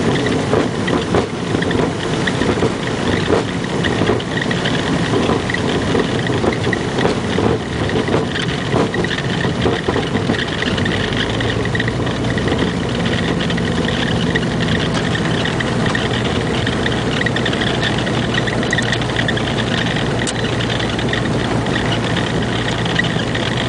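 Light single-engine aircraft's piston engine running at low power, heard from inside the cockpit as the plane rolls along a dirt airstrip. For roughly the first ten seconds it is rough, with knocks and rattles, then it settles into a steady drone.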